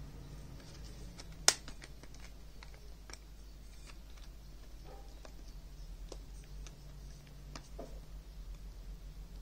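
Hands handling a HyperX Cloud Alpha headset, making scattered small plastic clicks and taps over a low steady hum, with one sharp, loud click about one and a half seconds in.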